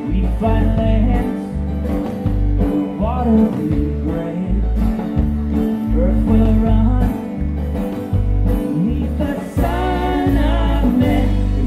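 Country-style band music: a singing voice over guitar and a steady bass beat.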